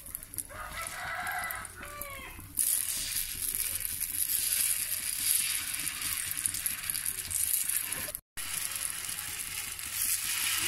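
Batter sizzling in ghee on a hot dosa tawa as spoonfuls are poured, a steady frying hiss that sets in about two and a half seconds in. Before it, a rooster crows once.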